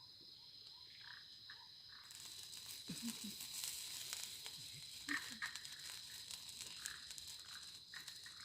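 Faint wet-forest ambience: a steady high-pitched chorus, a light patter and crackle of small clicks starting about two seconds in, and a few short low croaks.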